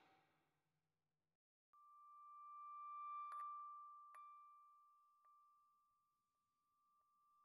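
A faint, single sustained high tone with a weaker overtone above it. It comes in a little under two seconds in, swells, then slowly fades, with a few soft clicks along it.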